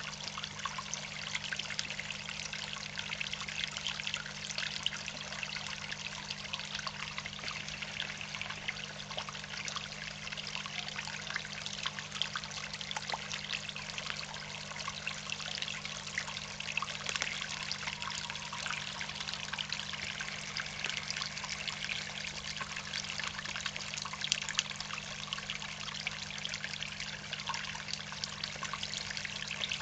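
Water trickling steadily into a fish pond, an even splashing with many small crackles, over a steady low hum.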